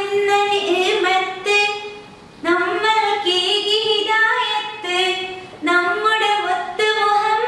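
A woman singing a melody in phrases of held notes, with short breaks between them.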